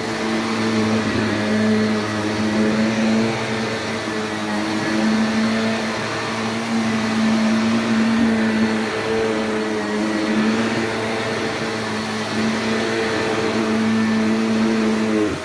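Shark NV355 upright vacuum cleaner running on a low-pile rug with its suction control fully closed for maximum suction. It makes a loud, steady motor drone with a constant hum, and the level drops off right at the end.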